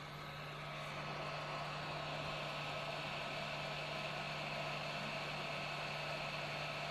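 Hot air rework station blowing a steady stream of hot air while reflowing small chips on a phone logic board, a constant hiss with a low hum underneath.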